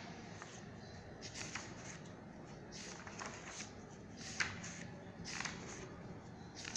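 Pages of a paperback textbook being turned by hand: a run of short, soft paper flicks and rustles at an uneven pace, as the book is leafed through to find a page.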